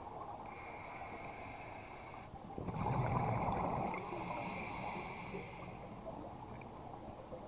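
Scuba diver breathing through a regulator underwater: a steady low wash of noise, with a burst of exhaled bubbles gurgling about three seconds in for around a second and a half.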